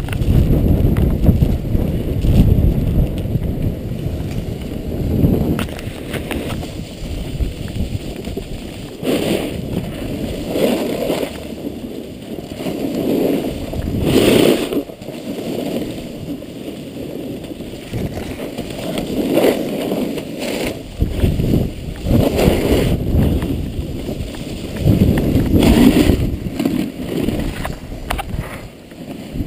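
Wind buffeting the camera microphone while riding a snowboard downhill, with the board's edge scraping over snow in repeated surges as it turns.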